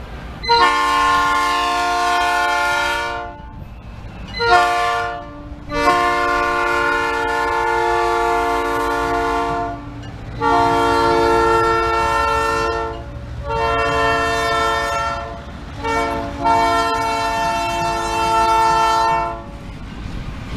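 Ferromex diesel locomotive's air horn sounding about seven blasts, some long and some short, as the locomotive passes. A steady low rumble of the train on the rails runs underneath.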